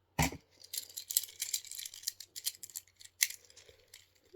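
Plastic fidget cube being handled and clicked: a sharp knock just after the start, then a quick run of small clicks and rattles that fades out after about three seconds.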